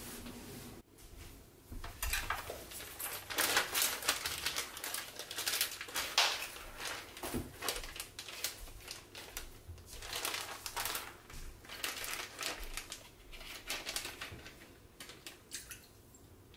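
Thin plastic food bag crinkling and rustling in irregular bursts as hands work pickled cucumbers out of it.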